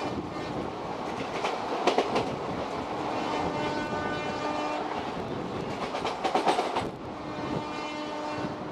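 Passenger train coaches rushing past on the adjacent track, heard from aboard a moving train: steady rushing noise with a clickety-clack of wheels over rail joints. Loud clatters come about two seconds in and again around six and a half seconds, and a faint steady tone comes and goes underneath.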